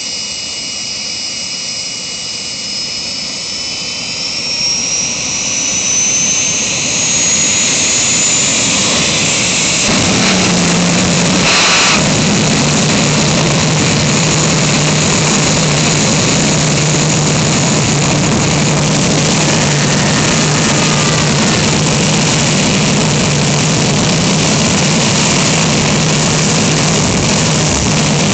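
The Green Mamba jet dragster's jet engine spools up: a rising whine over the first several seconds. About ten seconds in it opens into a loud, steady roar with a low drone underneath, the afterburner lit.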